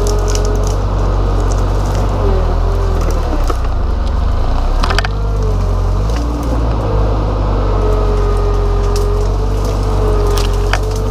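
JCB 135 skid steer's diesel engine running under load, with a steady whine that sags and wavers between about two and seven seconds in as the machine pushes brush. Sharp cracks of branches snapping come about five seconds in and again near the end.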